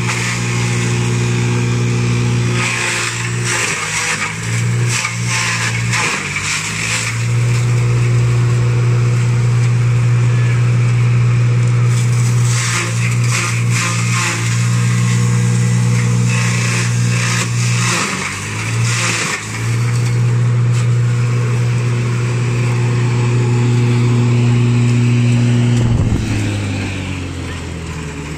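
Electric belt-driven chaff cutter and fodder grinder running with a steady hum, with crackling shredding bursts as dry stalks and leaves are fed in; the hum sags briefly under load. Near the end the hum falls in pitch and fades as the machine winds down.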